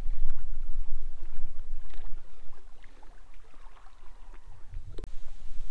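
Wind buffeting the microphone: a low, gusty rumble that eases off midway and picks up again, with a single sharp click about five seconds in.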